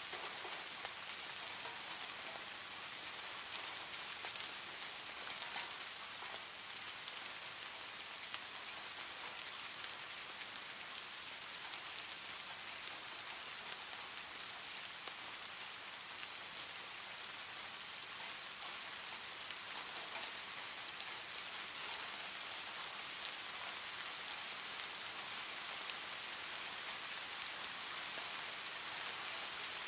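Steady rain, a dense even hiss of many small drop impacts, with no letup.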